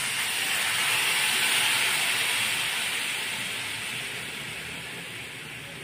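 Water poured into a hot pan of frying spice masala, hissing and sizzling loudly as it hits the hot oil, then slowly dying down over the next few seconds.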